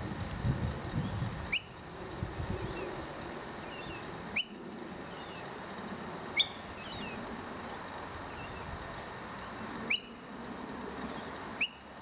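Fledgling noisy miner calling to its parents: five short, sharp calls, each sweeping quickly upward, spaced a couple of seconds apart, with fainter chirps in between.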